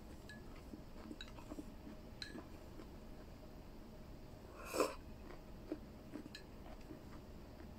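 Quiet eating at the table: a few light clicks of chopsticks against a bowl, and one short, louder breath through the nose about five seconds in.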